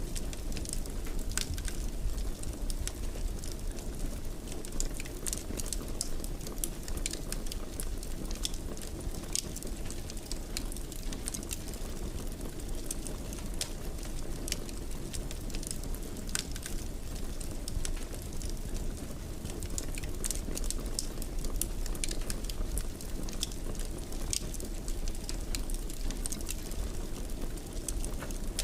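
Wood fire burning in a fireplace, a steady low rush of flames with frequent small crackles and pops scattered throughout.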